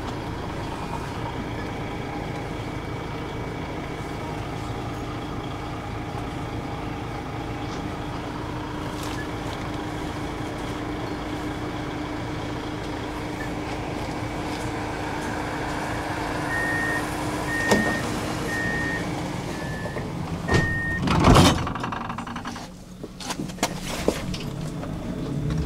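Tram running, with a steady motor hum under the rolling noise. Near the end come five short beeps about a second apart, then a loud clunk, after which the running noise drops away.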